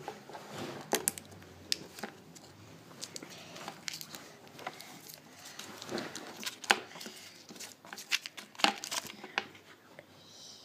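Gold foil wrapper of a small Lindt chocolate square being unwrapped by hand: irregular crinkling and crackling of the foil, busier in the second half.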